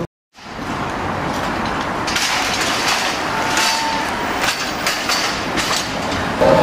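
Audience applauding at a theatre curtain call, a dense clapping that comes in after a moment's silence and builds over the first couple of seconds.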